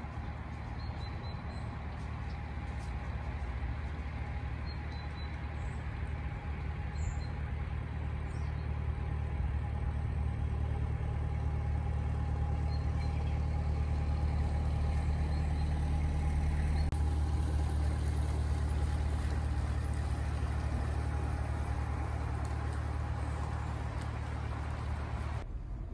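A narrowboat's diesel engine running steadily as the boat cruises at low speed: a low, even thrum that grows a little louder towards the middle.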